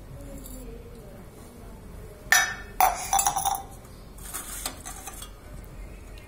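Stainless steel utensils (tumblers, bowls and a plate) clinking and clanking together as they are handled. Two sharp clanks come about two and a half seconds in, then a short run of clatter, and fainter clinks follow.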